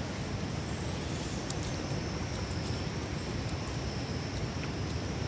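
Steady low rumbling background noise with a thin steady high whine, and a few faint soft clicks of chewing on meat.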